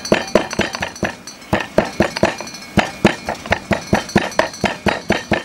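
Pestle pounding peanuts in a stone mortar: a steady run of sharp knocks, about four or five a second.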